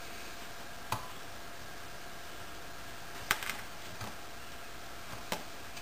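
A few small sharp metal clicks as a valve-core tool is worked into a dirt-clogged tire valve stem, over a faint steady hiss.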